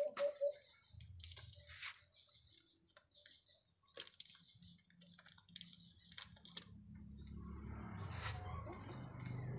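Faint crinkling and snapping as oyster mushroom clusters are pulled by hand from plastic fruiting bags, with a quick run of chirps at the very start and a low hum building in the second half.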